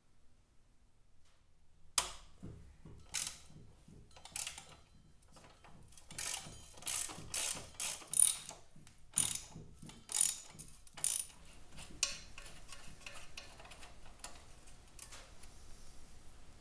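Hand tools working on metal motorcycle parts: a run of sharp mechanical clicks and short ratcheting rattles in irregular spurts, starting about two seconds in and growing fainter after the middle.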